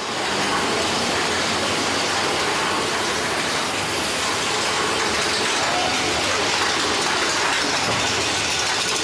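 Thunder Mountain mine-train roller coaster running fast along its track: a steady rushing noise of the train's wheels and the wind past the riders.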